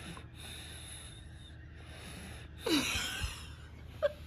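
Sleeping baby snoring: hissy breaths about every second and a half, with one louder breath falling in pitch about two and a half seconds in.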